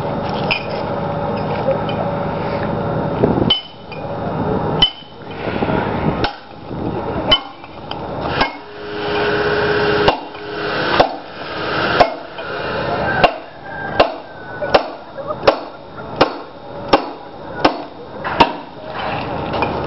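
Hammer striking a steel chisel set into the edge of a block of Westmorland green slate, riving it along its grain: a run of sharp taps, about one a second at first and quickening later on. The taps start a few seconds in, after a steady noise.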